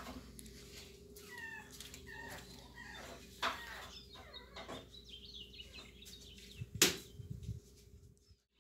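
Faint animal calls: many short, gliding calls, with scattered clicks and one sharp knock about seven seconds in, over a steady faint hum.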